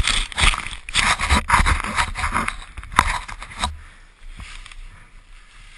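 Snow and fir branches scraping, crackling and thumping against the rider and the camera as he tumbles down through snow-laden trees, with many quick knocks. The noise stops abruptly a little past halfway, leaving a faint hiss.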